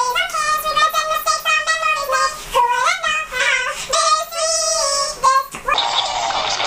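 High-pitched singing over music, a sung melody gliding between notes. Near the end it gives way to a denser, fuller stretch of music.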